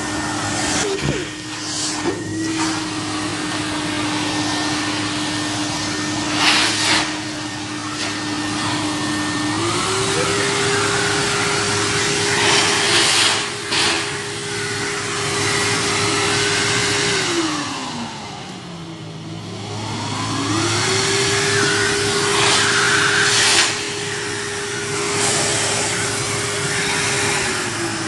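Henry vacuum cleaner motor running. Its pitch climbs about ten seconds in, sinks to a low dip and quieter spell around eighteen to twenty seconds before climbing back, then drops again near the end. A few brief knocks from the hose being handled sound over it.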